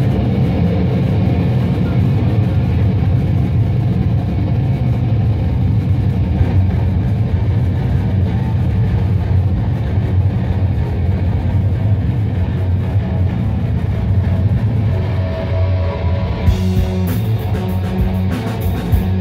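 Live rock band playing loud: a heavy bass guitar and electric guitar drive a dense low end, and cymbals and drums come in strongly about three-quarters of the way through.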